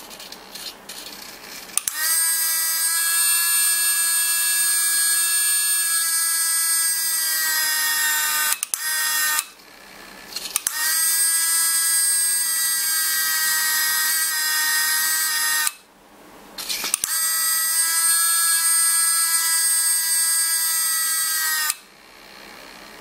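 Small electric hydraulic pump on a model aircraft retract rig whining steadily in three runs of about five to seven seconds each, starting and stopping abruptly, as it drives the hydraulic-converted retracts. A few light ticks come before the first run.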